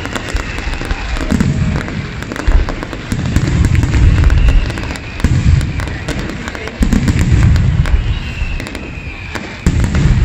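Aerial firework shells bursting in a professional display: a run of deep, loud booms every second or two, with sharp crackling snaps between them.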